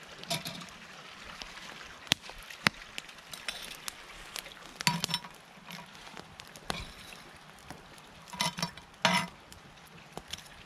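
Hot campfire coals being scraped and piled onto the lid of a cast-iron Dutch oven: scattered sharp clinks, knocks and scrapes of coals and a stick against the iron, with short clusters about five seconds in and again near the end.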